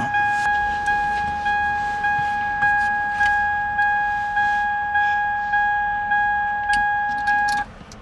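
2002 Toyota Tacoma's key-in-ignition reminder chime dinging over and over, about once every 0.6 s, with the key in the accessory position and the driver's door open. It cuts off suddenly near the end among a few small clicks from the lock cylinder being worked out of its housing.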